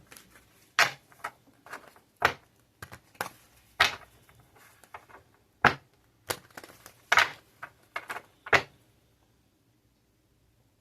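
A series of sharp, irregularly spaced clicks and taps, about fifteen in eight seconds, which stop near the end.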